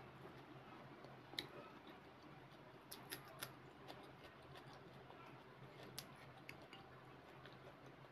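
Faint, sparse clicks and crackles of fingers handling fried bhatura and onion pakora, a few scattered light snaps over a low steady hum.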